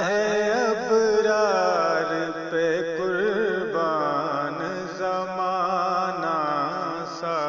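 Solo voice singing an Urdu naat, drawing out long melismatic phrases that waver up and down in pitch without clear words, over a steady drone.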